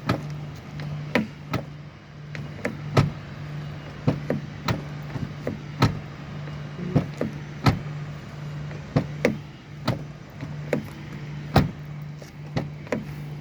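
Irregular sharp knocks and clicks from a Hyundai Solaris car door being worked, about twenty over the stretch, over a low hum that keeps cutting in and out.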